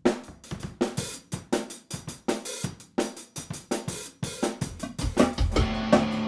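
Drum kit playing a steady rock beat with snare, kick, hi-hat and cymbals. About five seconds in, bass and other pitched instruments come in, filling out the music.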